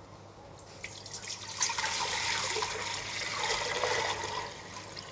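Water being poured into an empty stainless-steel stockpot, splashing on the metal bottom. It starts about a second in, runs strongly for a couple of seconds and trails off near the end.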